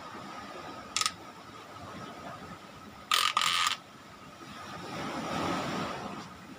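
Small exhaust fan motor running with a faint steady whine and short scraping rasps, strange noises that the repairman puts down to rust in the motor before it is oiled.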